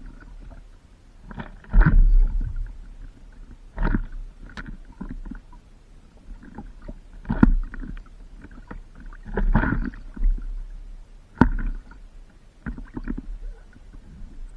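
Stand-up paddleboard paddle strokes splashing in the water, one every couple of seconds, over a low wind rumble on the microphone.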